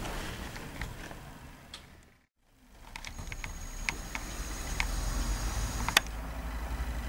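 Handheld camcorder noise: a low rumble with scattered light clicks that cuts out briefly about two seconds in. From about three seconds in comes a thin, steady high whine of the zoom motor as the lens zooms in, ending in a sharp click.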